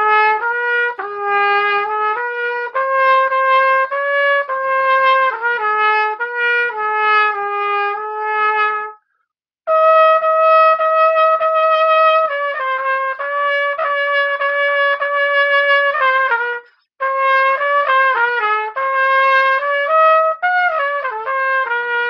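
pTrumpet, an all-plastic trumpet fitted with a metal mouthpiece, played in short melodic phrases. The playing stops briefly twice, about nine seconds in and about sixteen and a half seconds in, and there is a quick run of notes near the end.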